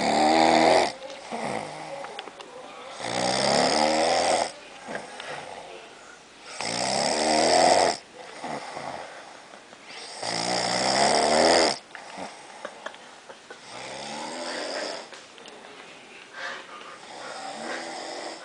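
A sleeping man snoring loudly: four long snores about three and a half seconds apart, each rising slightly in pitch, then softer, weaker snores near the end.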